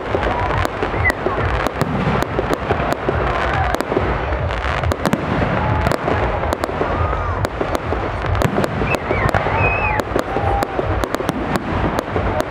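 Aerial fireworks display of large-calibre shells: sharp bangs and crackles follow one another in quick, irregular succession over a continuous low rumble of booms.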